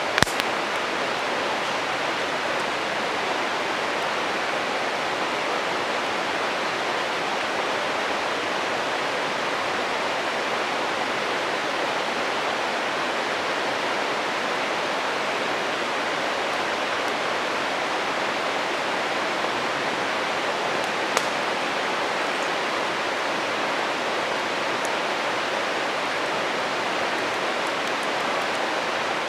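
Steady rushing of a stream, with a campfire crackling now and then: a sharp pop right at the start and another about two-thirds of the way through.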